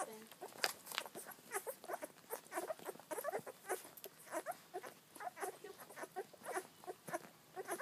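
Chocolate Labrador puppies suckling together at their mother's teats. It is a busy, irregular patter of wet sucking and smacking clicks mixed with small squeaks and grunts, several a second.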